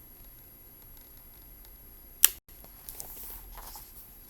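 Faint paper handling from a storybook's pages during a pause in the reading, with one sharp click about two seconds in that cuts to a moment of dead silence.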